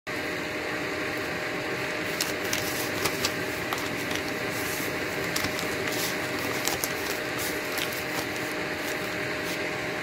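Steady mechanical hum with a faint steady tone, like a fan or motor running, with scattered light ticks and crinkles of newspaper as chapatis are torn apart by hand.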